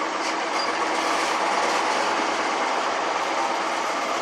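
GM Detroit Diesel supercharged inline-six two-stroke engine of a 1954 LeTourneau-Westinghouse Tournarocker running steadily with a deep, heavy rumble.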